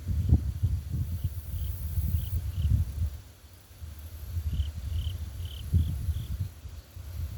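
Insects chirping and buzzing in short repeated chirps, over gusty wind rumbling on the microphone.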